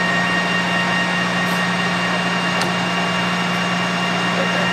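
Clausing Colchester 13x40 geared-head lathe running with its spindle at 770 RPM: a steady hum with a thin, steady high tone above it.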